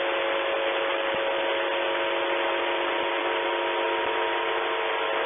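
Shortwave radio hiss with a steady hum of several tones: the 'ground loop' of a Russian military voice station's open channel on 4512.4 kHz, left on between messages.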